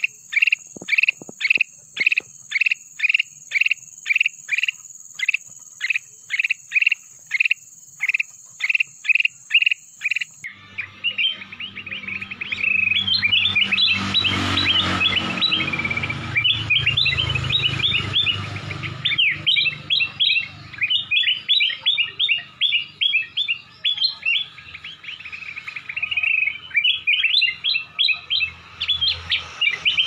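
Black-crested bulbul singing: first an even, monotonous run of short clear notes, about two a second, over a steady high hiss. After a cut about ten seconds in, it sings faster, chattering phrases of quick rising and falling notes over a low background rumble.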